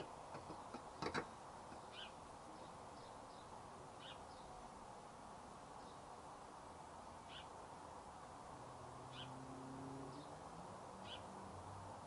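A quick cluster of metal clicks about a second in, as the trolley jack's handle is worked. Then a bird chirping faintly, one short high chirp about every two seconds.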